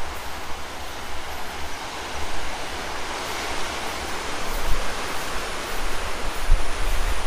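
Steady hiss of sea surf and wind by the shore, with wind buffeting the microphone in low rumbles that grow louder near the end.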